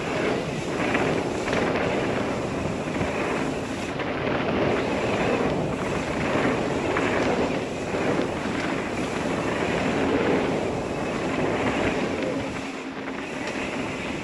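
Wind rushing over a helmet-mounted camera's microphone while riding a mountain bike on dirt singletrack, with tyre noise and short rattles from bumps in the trail.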